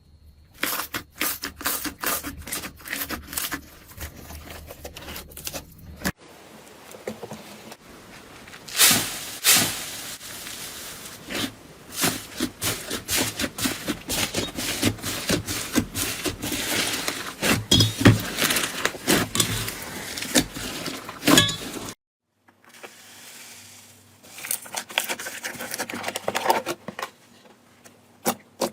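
Slime being pressed, stretched and poked by hand, making rapid crackling and popping clicks with stretches of sticky tearing. The sound cuts abruptly to a different batch of slime about six seconds in and again about twenty-two seconds in.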